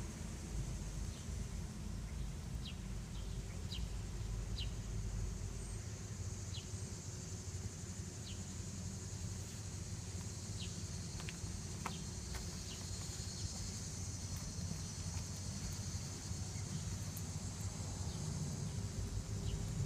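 Outdoor ambience: a steady high drone of insects and a low steady rumble, with short high chirps scattered through it, a little more of them about a third to two thirds of the way in.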